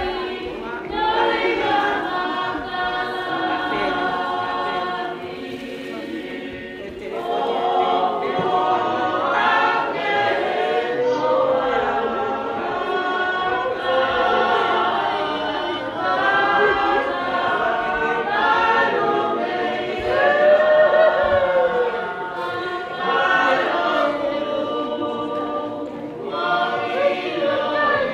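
A choir singing unaccompanied, phrase after phrase, with brief pauses for breath between lines.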